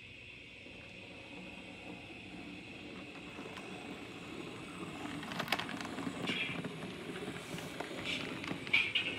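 On30 model steam locomotive and caboose rolling along the track, the running rumble growing louder as the train comes closer, with several sharp clicks and short higher-pitched bursts in the second half.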